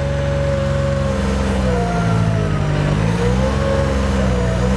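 Weedoo workboat's engine and hydraulic system running steadily while driving the engaged weed cutter through reeds. The pitch sags a little about midway and comes back up.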